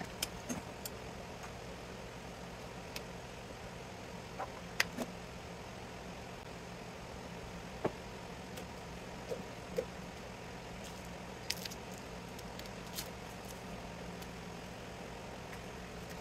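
Scattered light clicks and metal taps of tools and screws on the sheet-metal chassis and transformer of a variable frequency drive being taken apart, over a steady low hum.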